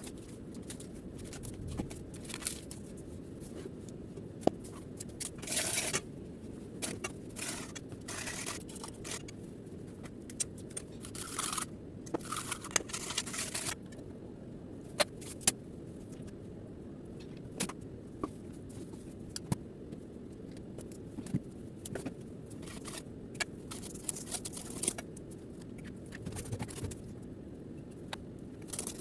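Kitchen handling sounds of food preparation: scattered clicks, clinks and short scraping and rustling bursts from utensils, bowls and packaging, over a steady low hum.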